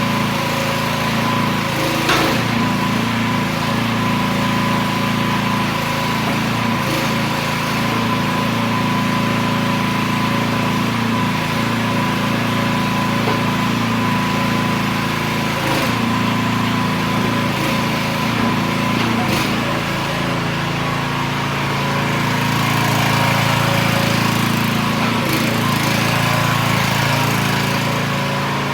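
Small 420cc single-cylinder gas engine of a Miva VA13C mini excavator running steadily, with a thin steady whine above it. A few sharp clicks or knocks come through, and it gets a little louder for a while in the second half.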